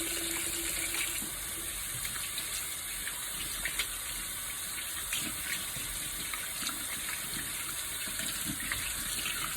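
Fish cooking in a pan: a steady sizzling hiss with scattered small pops.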